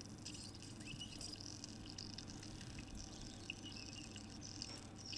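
Coffee pressed through a Delter coffee press and trickling into a glass server: a faint, crackly sizzle.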